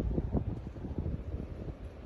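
Wind buffeting the microphone: an uneven low rumble that rises and falls in small gusts.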